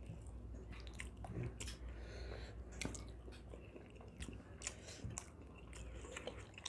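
Faint chewing and small wet mouth clicks of people eating soft rice bread and beef curry by hand, with light taps of fingers against the plates, scattered irregularly.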